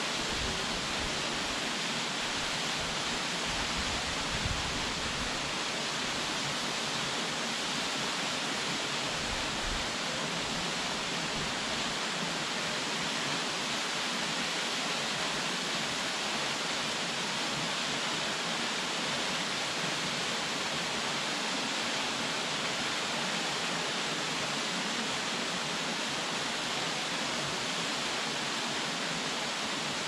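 Minoo Falls, a tall waterfall plunging into its pool: falling water rushing steadily and evenly throughout.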